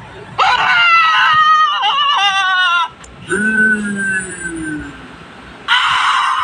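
Cartoon-character scream sound effects, one after another: a high, wavering scream, then a lower wail that falls in pitch, then a harsh, rasping scream starting near the end.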